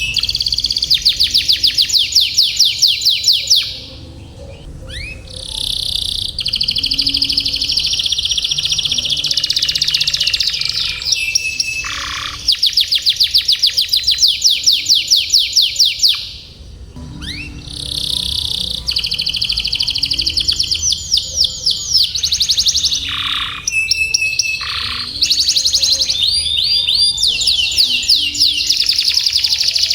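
Canary singing long, fast rolling trills of rapid repeated notes, strung together in phrases with short pauses between them.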